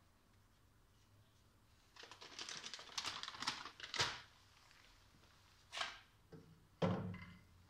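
Handling noises: about two seconds of rapid crackling and clicking, a sharp click, then a few short knocks, the last one the heaviest.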